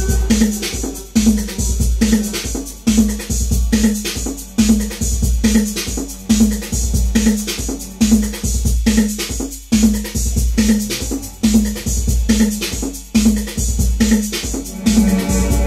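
Electronic techno groove: a Roland TR-808 drum machine beat with a repeating synth bass figure, played on a Roland Jupiter-6 synthesizer. Steady, with a deep kick and ticking hi-hats under the looping notes.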